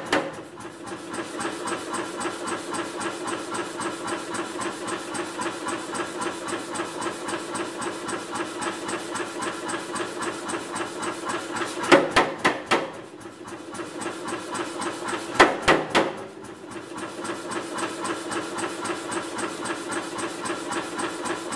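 Power hammer running with a steady, rhythmic drone between blows. About 12 seconds in and again about 15 seconds in it strikes a few quick heavy blows on red-hot steel in a V-jaw jig, forging the jaws of a pair of blacksmith's tongs.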